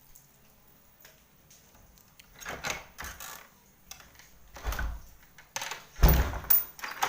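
A door being opened and shut: several short rattling, scraping noises, the loudest a heavy thump about six seconds in.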